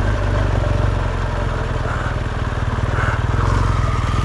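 BMW R1200 GS motorcycle's boxer twin engine running steadily.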